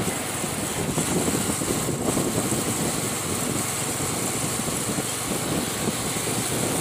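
Steady engine and wind noise from a motorcycle cruising at constant speed on an open highway.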